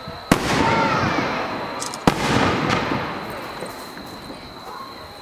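Fireworks bursting: two loud bangs about two seconds apart, each followed by a long rumbling echo that fades away.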